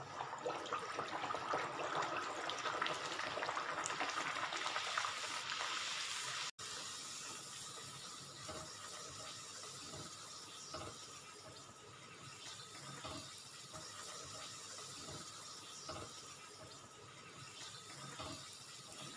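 Puri deep-frying in hot oil in a kadhai: a steady sizzling hiss, louder for the first six seconds or so while the fresh puri is pressed down with a wire skimmer, then quieter, with a few light clicks.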